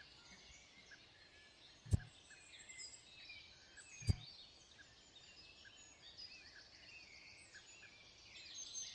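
Birds chirping faintly and repeatedly over a quiet background hiss, with two sharp knocks, about two seconds in and about four seconds in.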